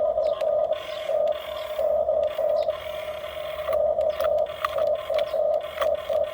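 Small electric motors of a Huina RC toy construction machine whining in short, irregular on-off bursts as the controls are worked, with scattered plastic clicks and scrapes.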